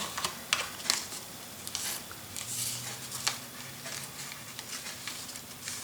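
Paper and cardstock being handled: light rustling, rubbing and small scattered taps and clicks as the pages and a tag of a handmade paper explosion box are moved.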